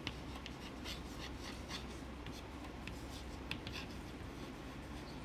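Chalk writing on a chalkboard, faint: a string of short, irregular strokes and taps as words are written.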